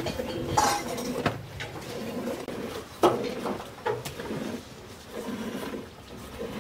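Cow-shed sounds: a few sharp knocks and clinks, among them a metal pail, over low, uneven animal sounds.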